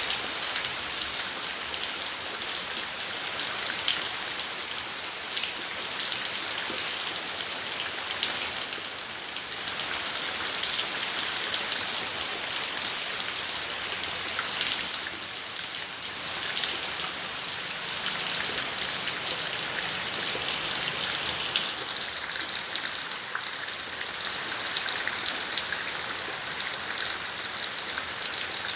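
Steady rain falling, a dense patter of countless drops striking surfaces.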